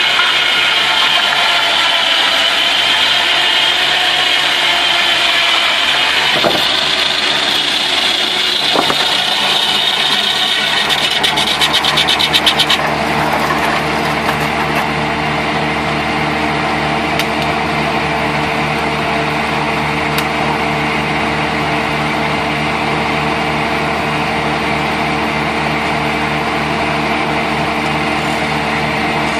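Homemade sawmill machinery running: a high whine for about the first dozen seconds, a quick run of rapid clatter near twelve seconds in, then a steady, even motor hum.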